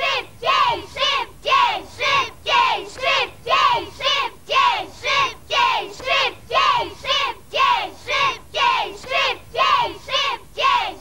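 A group of children chanting in unison, a short shouted call repeated over and over at about two a second.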